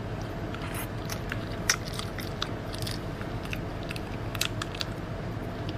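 Close-miked mukbang eating sounds: wet chewing with irregular mouth clicks and smacks as a mouthful of raw minced meat mixed with raw egg is eaten, over a faint steady hum.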